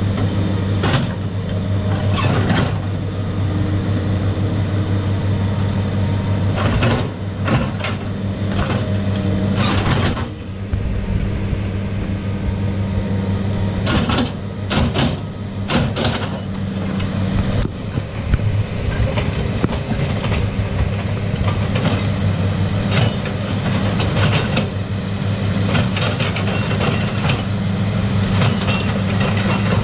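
Caterpillar 318 hydraulic excavator's diesel engine running steadily under load while it digs mud out of a creek bed, with scattered knocks and clanks from the bucket and machine.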